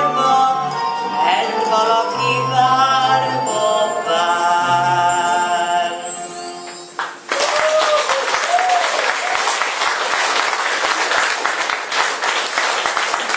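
Accompaniment music plays the song's closing bars with a sustained melody over bass notes, stopping abruptly about seven seconds in. The audience then applauds steadily.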